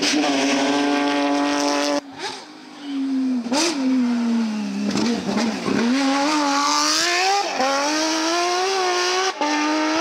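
Porsche 997 GT3 rally cars' flat-six engines at high revs, in several short clips cut together. One holds a steady high note, another falls steadily in pitch as the car comes off the throttle, then the revs climb and waver again under acceleration.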